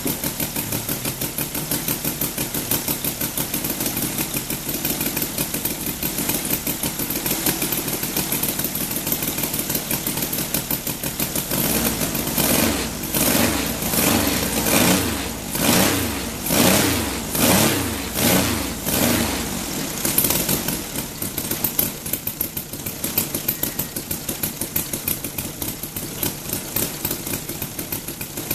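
Saito FG-60R3 60 cc three-cylinder radial petrol engine with spark ignition, driving a 20x10 propeller. It idles steadily, then from about twelve seconds in is revved up and back down in a run of short blips for several seconds, before settling back to a steady idle.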